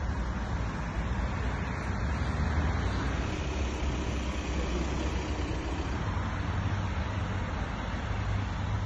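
Car engines running with a steady rumble and road noise, recorded on a phone's microphone.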